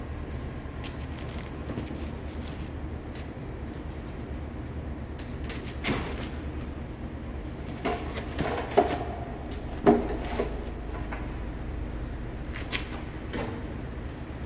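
Clunks and scrapes of a homemade wooden jack stand and its upright steel pipe being handled on a concrete floor: a cluster of knocks in the middle, the two sharpest about a second apart, over a steady low hum.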